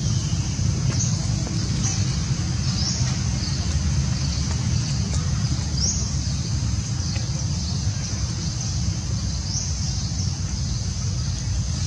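Outdoor ambience: a steady low rumble with short, high, rising bird chirps every one to three seconds.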